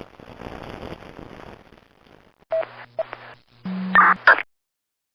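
Sci-fi helmet comlink effect: about two seconds of radio static, then a string of electronic beeps and blips over a low hum, the loudest near the end, cutting off suddenly.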